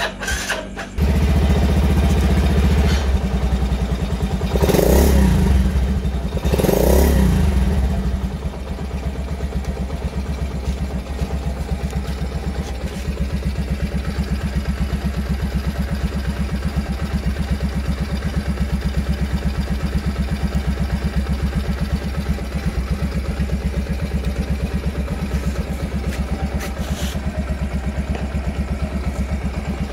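Honda Monkey/Gorilla minibike's single-cylinder four-stroke engine starting about a second in. It is revved twice, then idles steadily with an even beat.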